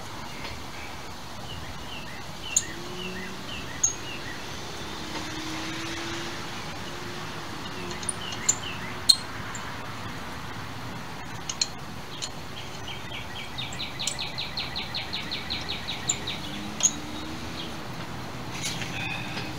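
Outdoor background noise with birds chirping, a quick even trill partway through, and a few sharp clicks.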